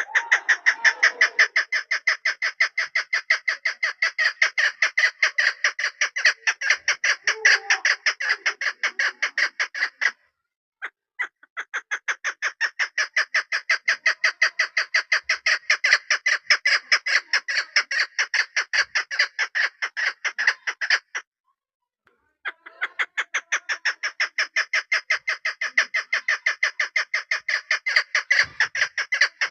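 Female chukar partridge calling: long runs of rapid, repeated chuk notes. The runs break off briefly twice and then start again.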